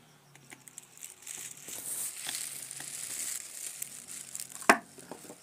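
A metal blade scraping the pad of an LED bulb's circuit board clean where a dead LED chip was removed: a dry scratching for a couple of seconds, then a single sharp click near the end.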